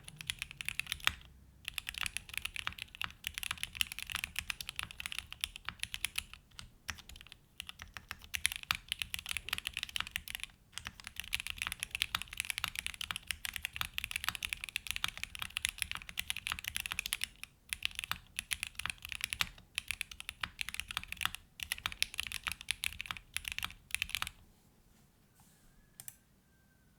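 Fast typing on a custom 65% mechanical keyboard, a Tofu65 2.0 with a polypropylene plate and case foam, fitted with hand-lubed Gateron North Pole 2.0 switches and GMK ABS keycaps. A rapid stream of keystrokes with several brief pauses stops about three seconds before the end.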